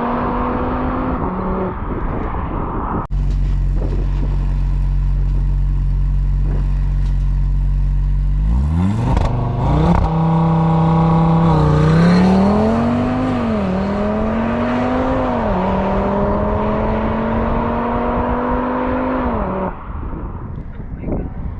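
Audi RS3's turbocharged five-cylinder exhaust with Unitronic midpipes fitted (secondary catalytic converters deleted). A steady low drone gives way to a sharp rise in revs, then the car accelerates with the pitch climbing and dropping back several times at the upshifts.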